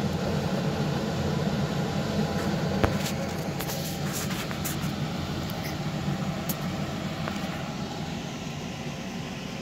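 A steady low mechanical hum runs throughout. A few sharp clicks and knocks come about three to five seconds in, from the camera being handled and moved.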